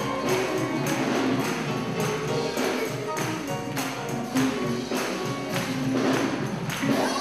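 Live gospel band playing with a steady beat: drum kit, bass and electric guitar and keyboard, with a jingling, tambourine-like percussion on top.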